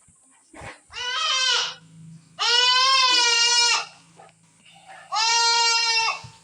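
Goat bleating three times: a short call about a second in, a longer call with a wavering pitch, and a third call near the end.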